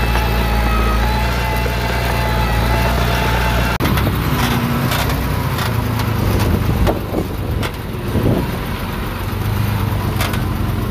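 Heavy-equipment diesel engine running steadily; about four seconds in the sound changes abruptly to rougher engine noise with repeated knocks and clanks.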